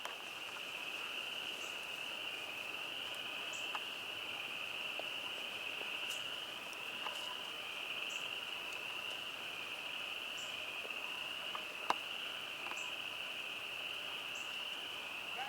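Insects droning outdoors: a steady high-pitched drone that wavers slightly, with faint short high chirps about once a second and a single sharp click about twelve seconds in.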